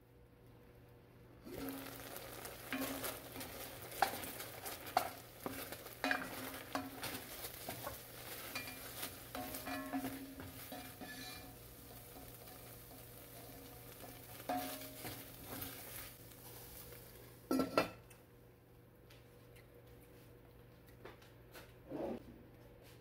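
Gizzards in sauce sizzling in an enamelled Dutch oven while a spoon stirs them, with scrapes and knocks of the spoon against the pot. Near the end the pot's lid is set back on with a loud clank, followed later by a lighter knock.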